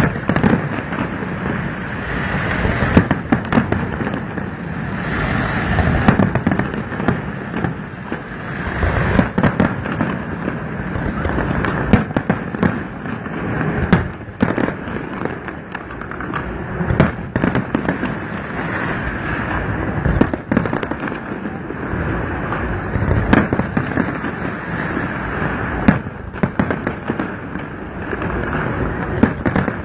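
Fireworks display: aerial shells bursting in a dense barrage of sharp bangs at irregular intervals, several close together at times, over a continuous rumble of launches and bursts.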